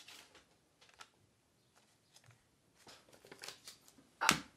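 Clue cards being handled at a table: faint, scattered light clicks and rustles of card stock, with a quiet stretch in the middle and one louder sharp snap near the end.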